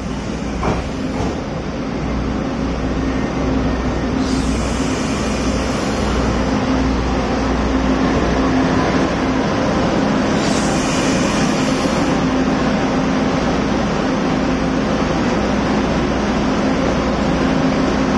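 DR1000 diesel railcar's engine running with a steady hum. Two short hisses of air come about four and ten seconds in.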